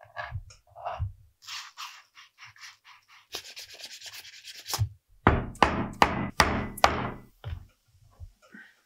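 A knife shaving the edge of vegetable-tanned leather in a few short cuts, then the edge being rubbed back and forth with an abrasive in quick scraping strokes. The strokes are loudest in a run of about five about halfway through.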